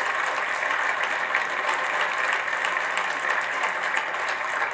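Crowd applauding, a dense and steady patter of many hands clapping.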